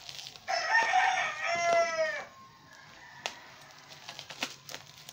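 A rooster crows once, a loud call of nearly two seconds that falls in pitch at the end. Afterwards come scattered small clicks and crinkles of a plastic-wrapped package being handled and cut with scissors.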